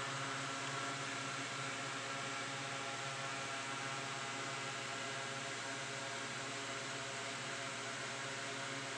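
Steady electrical hum with an even hiss, several steady tones stacked together, unchanging throughout.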